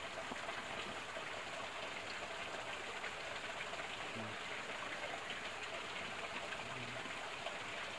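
Faint, steady rush of water from a small stream.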